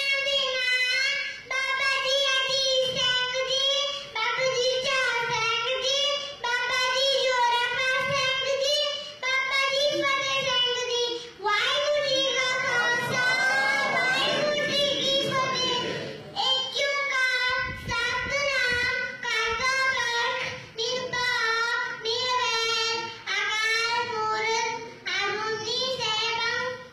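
A young girl's voice reciting Sikh paath in a steady sing-song chant, in short phrases with brief breaks for breath.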